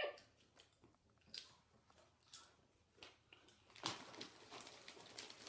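Faint chewing of Doritos Roulette tortilla chips: a few separate crunches, then denser crackling from about four seconds in.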